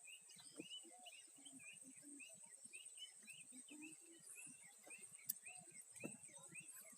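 Faint outdoor ambience of small chirping calls repeating about twice a second over a steady high-pitched whine, with a single sharp click about five seconds in.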